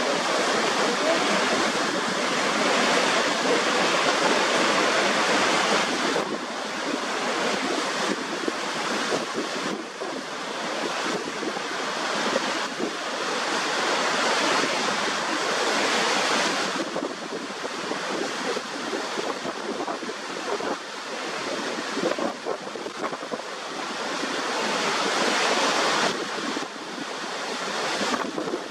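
Niagara Falls pouring over the brink: a steady, loud rush of falling water that swells and eases every few seconds.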